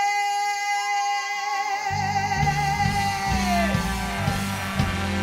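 Rock music: a singer holds one long note with vibrato that bends down and fades about three and a half seconds in, while low guitar notes come in about two seconds in.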